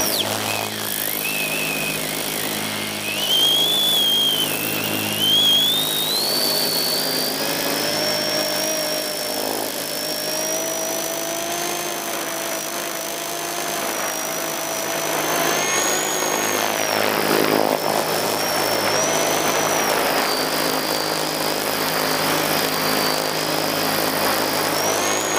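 Single-rotor drone's motor and propeller whining, heard from the camera it carries, the pitch gliding up and down as the throttle changes, over a rush of air noise.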